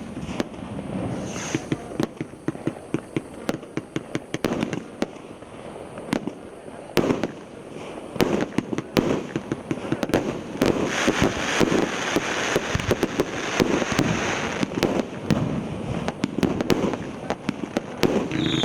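A multi-shot consumer fireworks battery (cake) firing: a rapid, irregular string of launch pops and bursting bangs with crackling, and a hissing stretch around the middle.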